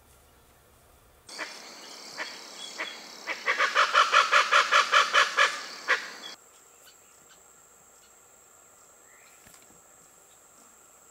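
Little chachalacas calling in a loud, rhythmic chorus. The calls build to about five strokes a second, then cut off suddenly about six seconds in, leaving a faint, steady, high insect buzz.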